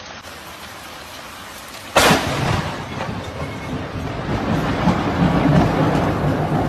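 Rain hissing steadily, then a close thunderclap about two seconds in: a sudden sharp crack from a nearby lightning strike, followed by a long, heavy rumble of thunder.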